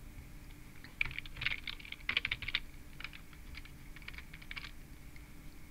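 Typing on a computer keyboard: a quick run of key clicks starting about a second in, thinning out to a few scattered clicks near the end.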